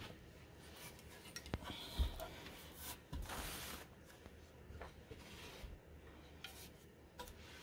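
Faint handling of solid wood barstool parts: scattered light knocks and clicks as the pieces are lifted and set down, the sharpest knock about two seconds in, and a brief rustle of rubbing a little after three seconds.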